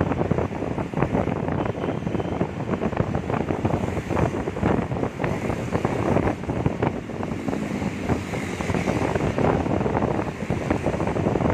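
Wind buffeting the microphone of a rider on a moving motorcycle, a steady gusty rush over the road and traffic noise beneath.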